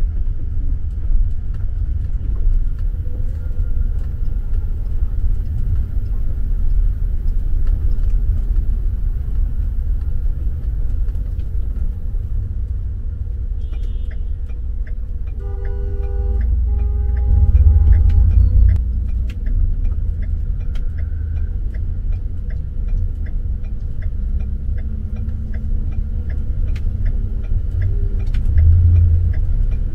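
Steady rumble of city street traffic. A vehicle horn sounds twice about halfway through.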